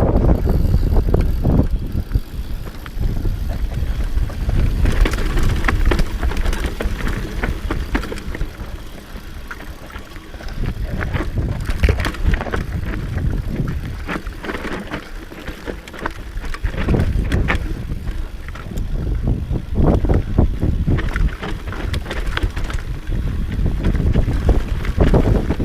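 Enduro bike riding over a rough dirt trail: wind buffets the microphone over the tyres' rumble, with frequent sharp knocks and rattles from the bumps. It eases off a little twice, around ten and fifteen seconds in.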